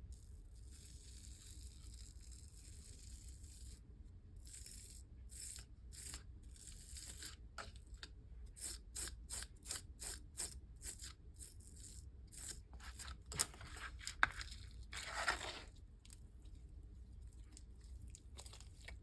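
A soft, squishy slime being squished and pressed by hand. A few seconds of quiet handling give way to a quick run of sticky pops and crackles, the two sharpest pops coming about two-thirds of the way through.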